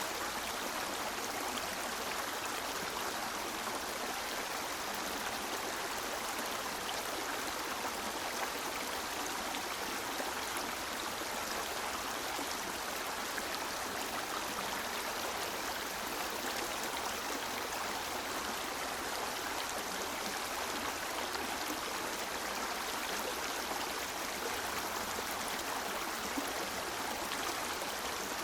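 A river's water running steadily, an even, unbroken rush with no change in level.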